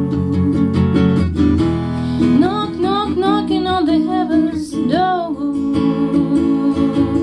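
Acoustic guitar strumming chords, with a voice singing a gliding, wavering melody line from about two to five seconds in.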